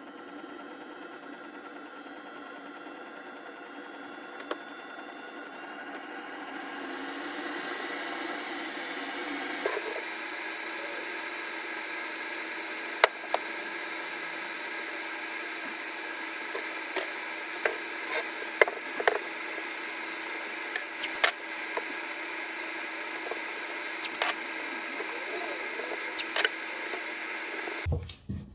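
A small electric motor on a workshop power tool winds up in pitch over a few seconds, then runs steadily, with scattered sharp clicks and knocks. It stops suddenly near the end.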